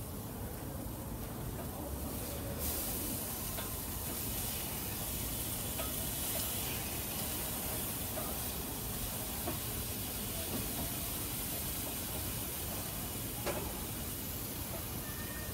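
Marinated pork tenderloin pieces sizzling on a hot grill grate: a steady hiss that grows brighter a few seconds in. A few light clicks of metal tongs against the grate as pieces are moved and turned.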